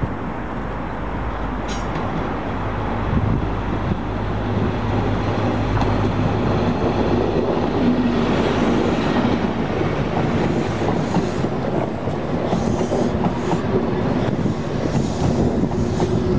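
An East Coast InterCity 125 (HST) passing close by. The diesel engine of its leading Class 43 power car hums and grows louder over the first few seconds, then the coaches roll past with a repeated clatter of wheels on the rails.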